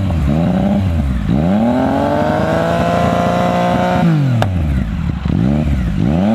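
Engine revved while standing, through a stainless-steel sport exhaust: a few quick throttle blips, then a longer rev held for a few seconds, dropping back, then more blips. A single sharp click comes just after the long rev.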